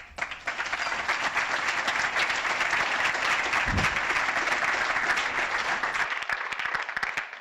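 Lecture audience applauding to welcome a speaker. The clapping starts at once, holds steady, and dies away over the last second or so.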